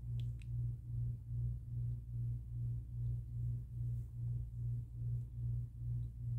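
A low steady hum that swells and fades about two and a half times a second.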